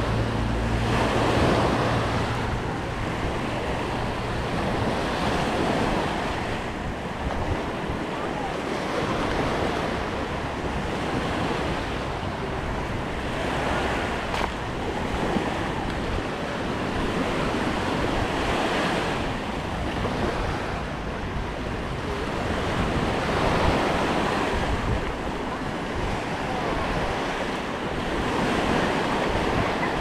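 Small waves breaking and washing up on a sandy shore, swelling every five seconds or so, with wind buffeting the microphone.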